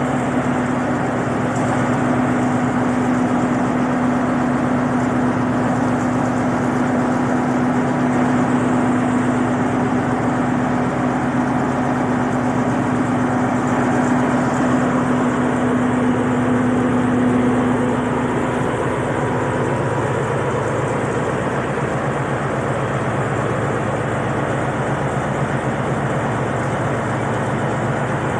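Alsthom diesel-electric locomotive idling at a standstill, its diesel engine running steadily. A steady hum over the engine fades away about two-thirds of the way through.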